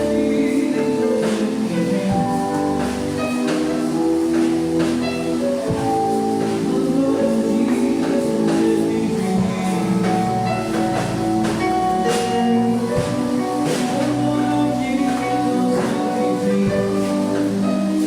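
Instrumental worship music: long held chords with drum hits scattered through it.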